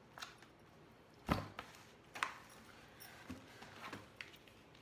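Handling noise of small craft items in plastic packaging: a string of short, sharp taps and clicks, the loudest a knock with a dull thump a little over a second in.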